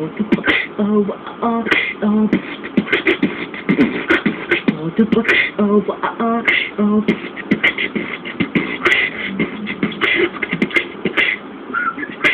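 Human beatboxing into a cupped hand: a fast, unbroken run of percussive mouth clicks and pops. Short pitched notes are mixed in during the first several seconds.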